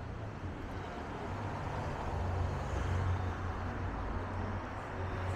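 Street traffic noise: a steady low engine rumble from road vehicles that grows louder about two seconds in.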